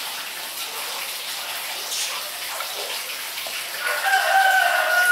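A rooster crows about four seconds in: one long, drawn-out call that dips slightly in pitch at the end. Beneath it is a steady, watery hiss.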